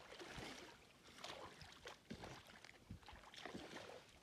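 Faint, irregular splashing and sloshing of pond water as a sheep is held and scrubbed in it by people standing in the water.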